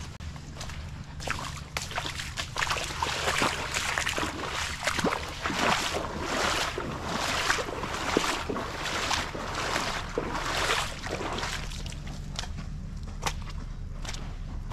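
Footsteps wading through shallow water and wet mud at a walking pace, each step a short splash or slosh, loudest in the middle stretch.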